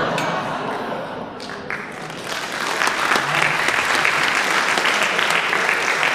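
Audience in a hall laughing at a punchline, then breaking into applause that swells about two seconds in and keeps going.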